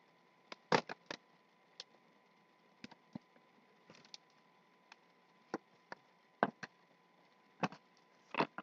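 Cardboard doll box and its plastic packaging being handled: irregular light clicks, taps and knocks, a quick cluster about a second in and a few more near the end.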